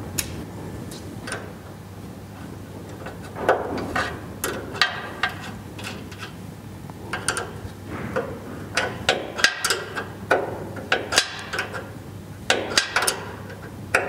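Irregular metallic clicks and knocks, in clusters over a steady low hum, from adjusting the sawhead on the left pylon of a Logosol B751 band sawmill. The sawhead is being raised slightly on that side to bring the blade level with the log bed.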